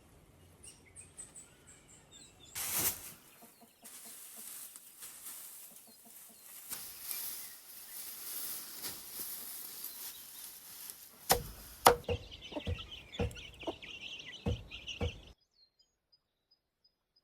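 Chickens clucking, with a run of sharp knocks in the second half; everything cuts off suddenly about fifteen seconds in.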